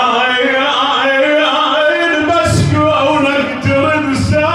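A man's voice chanting a mournful Arabic elegy (nai) in long, drawn-out sung notes that waver in pitch, with two short breaks about two and four seconds in.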